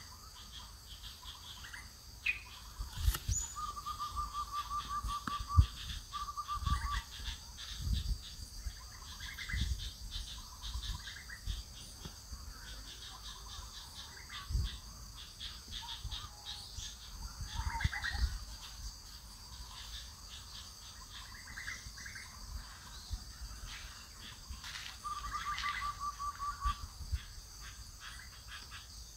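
Forest ambience: a bird gives a fast trilling call three times, with other short chirps around it, over a steady high insect buzz. Several low thumps break through, the loudest about five seconds in.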